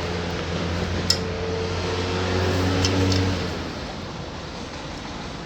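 A low engine hum, likely a passing vehicle, swells and then fades away about three seconds in, with two light metallic clicks.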